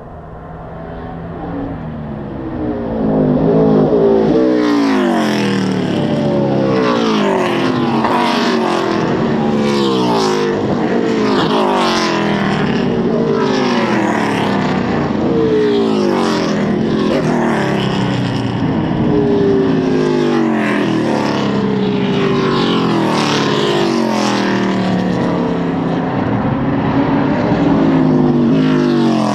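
A pack of V8 NASCAR stock cars racing past one after another. The engines build up over the first few seconds, then come by in a near-continuous stream. Each car's engine note drops in pitch as it goes by.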